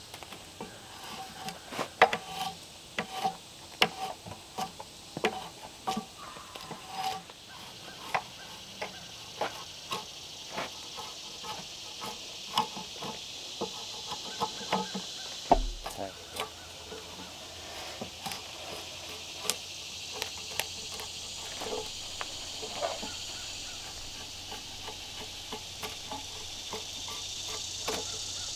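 Drawknife shaving bark off a log, with irregular scrapes and sharp knocks as the blade bites and catches. A steady chorus of insects runs underneath.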